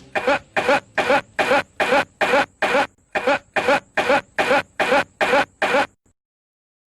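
A man's recorded cough, looped as identical short coughs about three a second, with no music under it. It cuts off suddenly about six seconds in.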